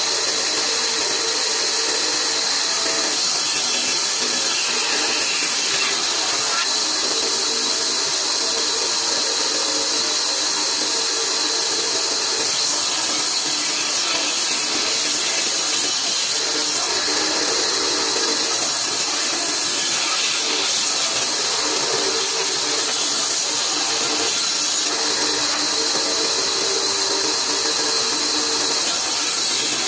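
Large old vertical bandsaw running and ripping a wooden plank: a steady hiss of the blade through the wood, with a lower hum that comes and goes as the cut loads it.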